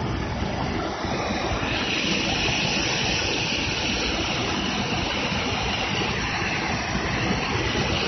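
Mountain stream water rushing over rocks, a steady noise picked up close by on a waterproof mobile phone's uncovered microphone.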